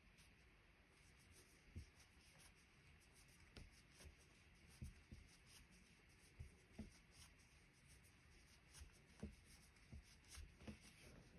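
Near silence with faint, irregular rubbing and light taps: a metal crochet hook working chenille yarn into a magic ring, stitch by stitch.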